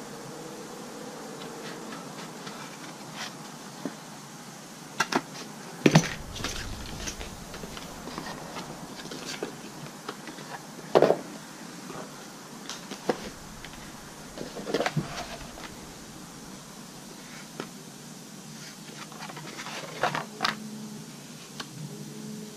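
Cardboard and tools handled on a workbench: tin snips cutting a cardboard sun-visor pattern at the start, then scattered rustles, clicks and knocks, with two louder knocks about six and eleven seconds in.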